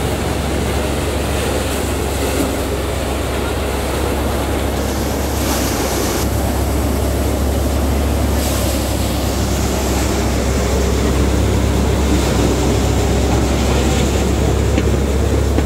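A six-fan Manku multicrop thresher running under load as paddy is fed in, driven by a Mahindra 475 DI SP Plus tractor's 44 hp diesel engine. It makes a steady, loud mechanical drone with a strong low hum, growing a little louder toward the end.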